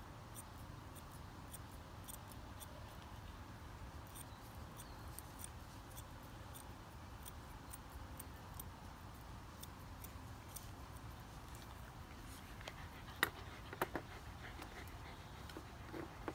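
Thinning shears snipping a dog's jaw hair: a run of faint, quick, crisp snips, then a few louder clicks about three-quarters of the way through.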